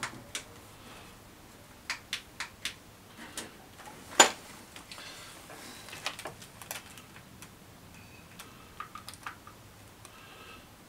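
Hand tools clicking and clinking against metal as they are handled in an engine bay, irregular light ticks with one sharper knock about four seconds in.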